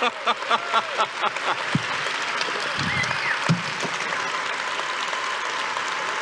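A large audience applauding and cheering, with quick rhythmic pulses for the first second or so that settle into steady applause.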